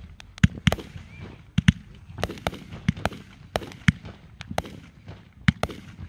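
Aerial fireworks launching and bursting in quick succession: a string of sharp bangs, irregular, about two or three a second.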